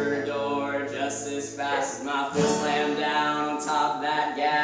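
Singing: a voice holding long notes, in two long phrases with a short break about two seconds in.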